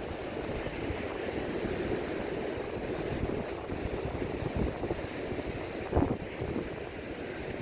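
Sea breeze buffeting the microphone over the steady wash of surf, with a brief louder bump about six seconds in.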